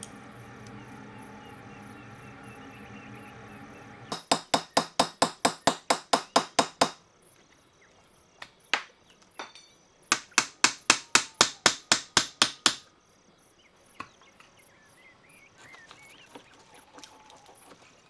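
Hammer blows on a steel part, in two quick runs of about a dozen strikes each, roughly four to five a second. Before them there is a steady low hum for a few seconds.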